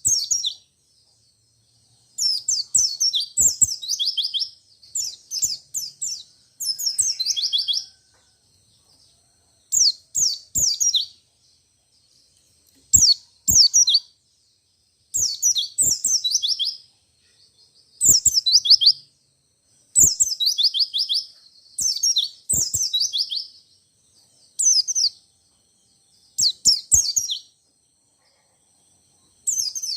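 White-eye (pleci, Zosterops) singing a rolling song: fast runs of high, falling notes, repeated in short phrases every two to three seconds.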